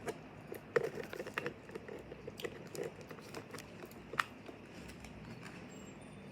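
Jelly cube slime being squished and poked by hand, giving scattered small wet clicks and pops, with the sharpest click about four seconds in.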